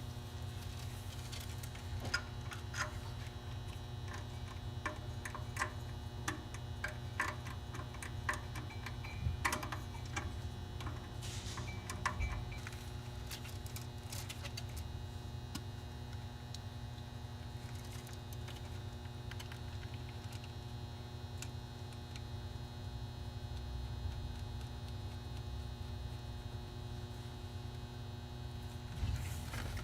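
Scattered light clicks and taps of hands working a fuel hose and push-lock fittings, clustered in the first dozen seconds, over a steady low hum. A short rustling knock comes near the end.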